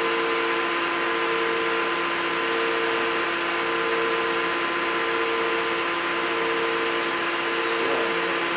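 Tensile testing machine running with a steady hum of several held tones over a hiss as it slowly pulls a hot-rolled steel test bar in tension, with the load still rising towards its peak.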